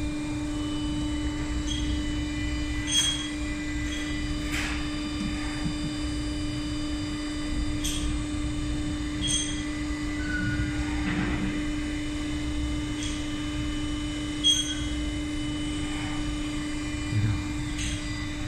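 Steady machine hum from the running fastener insertion press and its auto-feed unit, with a few sharp clicks and knocks from air hoses being pushed into their fittings.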